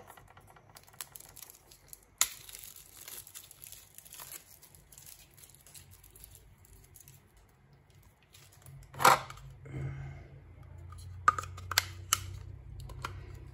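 Small clear plastic bags crinkling and tearing as they are handled. A sharp knock comes about nine seconds in, and a few light clicks follow soon after.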